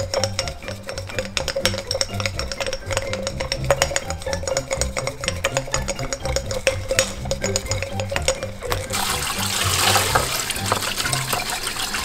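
Background music with a steady beat; about nine seconds in, a kitchen tap starts running water into the sink as baby bottles are rinsed, over the music.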